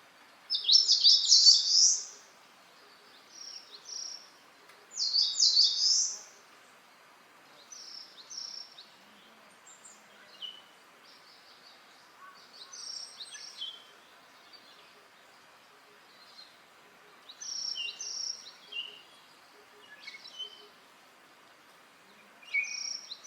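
Wild songbirds singing: a loud, fast song phrase about half a second in and again around five seconds, then shorter, quieter phrases from other birds through the rest, over a faint steady hiss.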